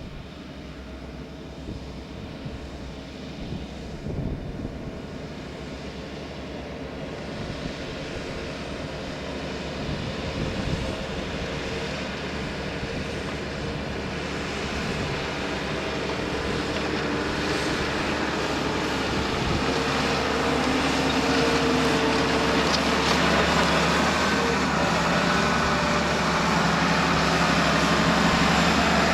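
Valtra tractor's diesel engine running under load while pulling a plough, growing steadily louder throughout.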